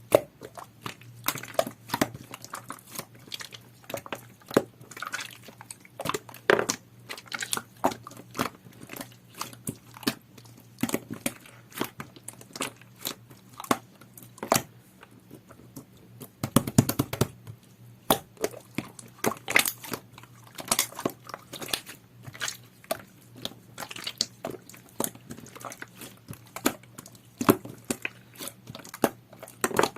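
Clear, jelly-textured slime being squeezed, poked and pulled by hand, giving a run of irregular sticky clicks and small pops.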